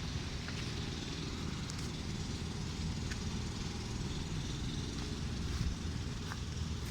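Air conditioner outdoor unit running steadily: a continuous low compressor hum under the even rush of its fan.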